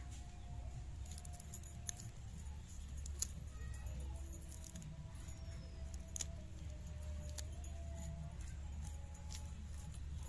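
Fresh chillies being sliced by hand against an upright metal blade: a handful of sharp, irregularly spaced clicks and snips over a low steady rumble.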